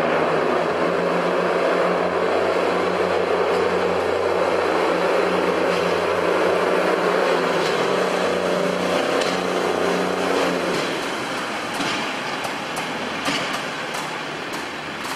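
Pacer diesel railbus pulling away, its underfloor diesel engines running at a steady note that fades after about ten seconds as the unit draws off. In the second half comes a series of sharp clicks from the wheels crossing rail joints and pointwork.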